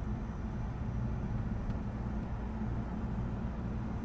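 Mercedes-Benz CLS driving at a steady speed: an even low engine hum with road noise, with no change in pitch.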